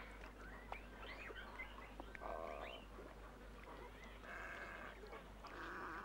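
Wading birds calling: three harsh, nasal, bleat-like calls, the first about two seconds in and the others about a second apart near the end. Short, faint chirps of small birds come in before them.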